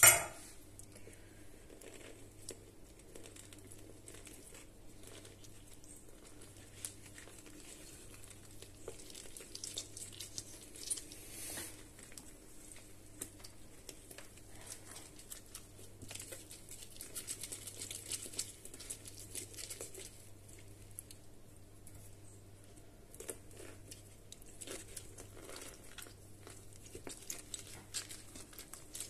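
Limes being juiced by hand on a plastic citrus reamer: faint, irregular scraping and squishing as the halves are twisted on the ridged cone, with a sharp knock right at the start.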